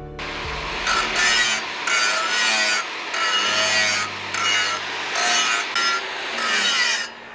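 A hand tool drawn over steel in about six long back-and-forth scraping strokes, roughly one a second, with a faint metallic ring in each stroke.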